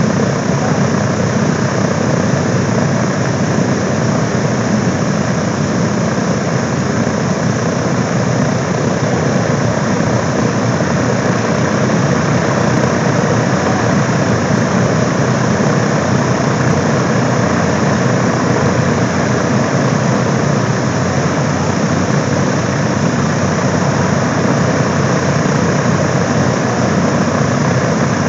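Boeing B-29 Superfortress's Wright R-3350 radial engines running steadily on the ground, a loud, even engine-and-propeller noise with no change in speed.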